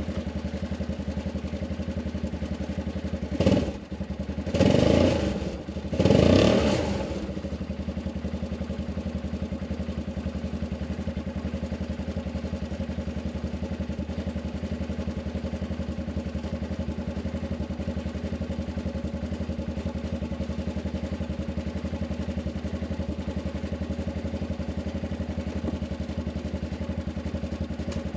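Arctic Cat 500 ATV engine idling steadily, running again after its dead battery was dealt with. Three short louder bursts come about three to seven seconds in.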